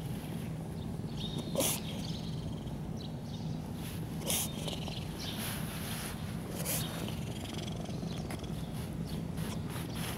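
Long-haired tabby cat purring steadily as it is stroked, with a few short rustles about two seconds apart.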